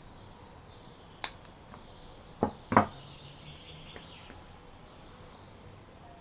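A sharp click about a second in, then two louder knocks close together, as red-handled cutting pliers are worked and set down on the worktable. Faint bird chirps run behind.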